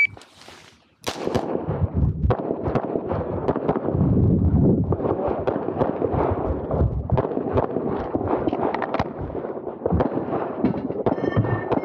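Handgun fired in rapid strings during an IPSC stage run. The first shot comes about a second in, and the shooting goes on in quick bursts right through.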